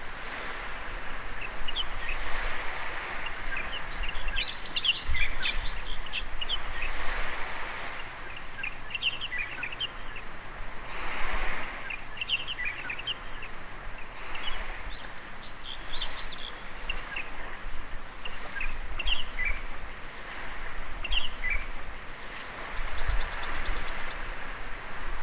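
Small birds chirping and twittering in quick runs of short notes, over a continuous wash of gentle surf on the shore that swells every few seconds.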